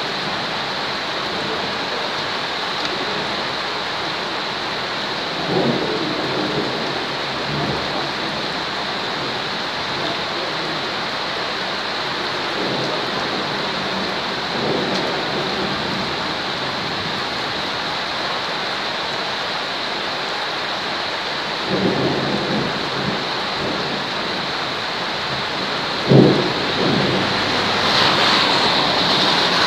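Steady heavy rain with occasional low rumbles of thunder, about five in all, the loudest a sharper crack near the end.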